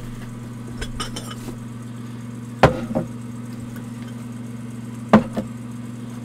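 Glassware and bag contents being handled: a few light clicks, then two sharp clinking knocks about two and a half seconds apart, over a steady low hum.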